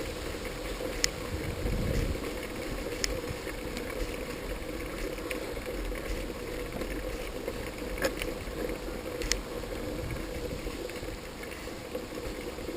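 Bicycle ride with wind buffeting the microphone: a steady rumble of riding noise, broken by a few sharp clicks and rattles from the bike.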